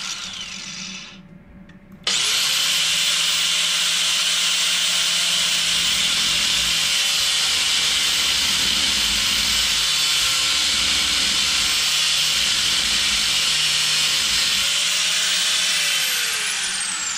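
DeWalt angle grinder switched on about two seconds in, its motor whining up to full speed, then grinding steadily into the head of a stripped, seized metal screw on a brake rotor hub to cut a slot for a flathead screwdriver. Near the end it is switched off and its pitch falls as it spins down.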